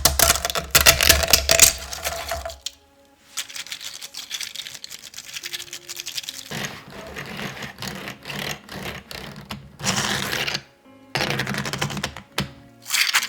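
Rapid, dense clicking and rattling in several bursts, like hard plastic 3D-printed parts being worked by hand, over background music.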